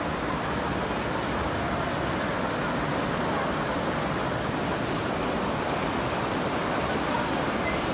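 Fast, muddy floodwater of the Ganga in spate, rushing and churning in a steady, unbroken wash.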